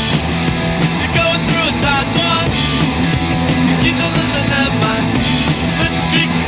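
Background rock music with a sung vocal, guitars and a steady beat.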